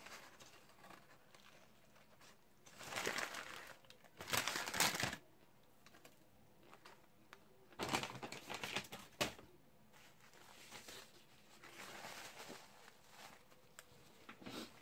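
Close-miked eating sounds: crunching bites and chewing of a crispy chicken sandwich, along with paper wrapper crinkling, in three louder bursts with softer rustling between them.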